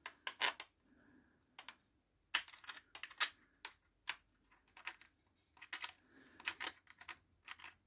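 Handling noise: irregular light clicks and taps as hard objects are picked up, turned over and set down.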